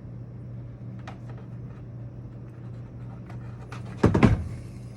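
Workbench handling noises from gluing foam pieces down: a few faint clicks, then one louder knock about four seconds in, over a steady low hum.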